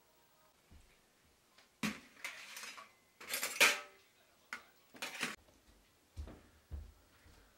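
Bowls, plates and metal spoons clinking and clattering, with a sharp ringing metal clank about three and a half seconds in, then a few softer knocks and low thuds.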